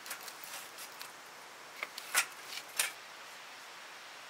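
A run of short clicks and rustles over a steady hiss, the loudest three coming between about two and three seconds in.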